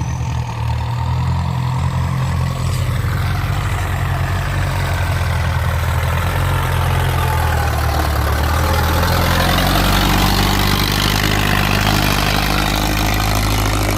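Ford 6610 tractor's four-cylinder diesel engine running loud and hard under load, pushing wet soil; the engine note grows fuller and slightly louder about halfway through.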